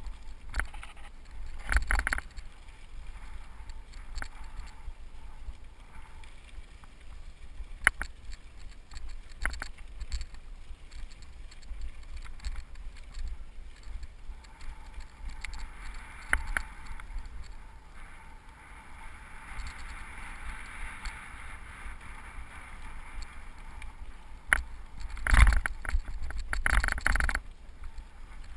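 Cyclocross bike rolling down a dry dirt singletrack: tyres on loose dirt, and the bike rattling with sharp knocks as it hits bumps, over a steady low rumble. The heaviest jolts come about two seconds in and again near the end.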